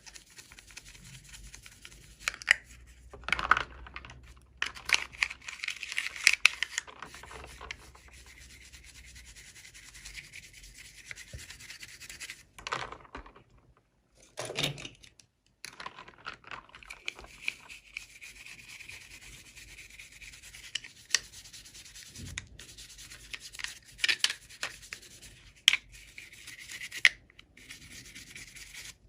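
Hands rubbing and scratching at toy packaging, a scratchy hiss with scattered sharp clicks, broken by two short pauses about halfway through.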